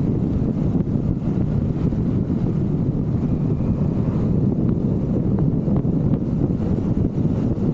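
Wind buffeting the microphone of a Vespa GTV 300 scooter at riding speed, with road and vehicle noise underneath: a steady, heavy low rumble that doesn't let up.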